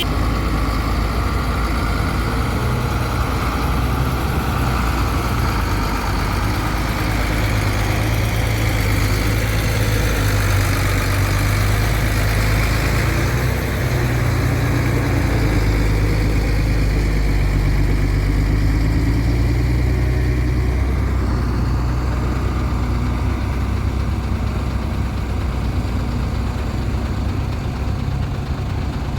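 Heavy diesel engine of road-construction machinery running steadily at a low, even pitch. About two-thirds of the way through, the higher hiss thins out while the engine note carries on.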